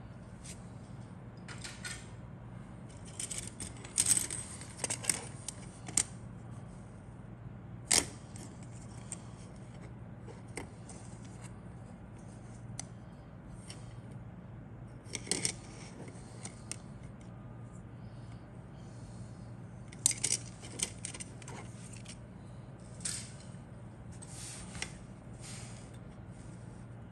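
Plastic model kit parts clicking and rattling as they are handled and set down on a cutting mat, in scattered short bursts with a few sharper clicks, over a low steady hum.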